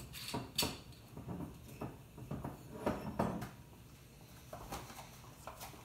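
Kitchen handling noises at the stove: a series of short knocks and clicks, with the sharpest about half a second in and two close together around three seconds in, and softer rustling and clatter between.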